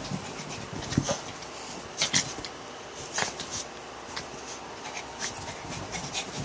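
Small dog playing on a bed: short, irregular scuffs and rustles against the comforter, about one every second.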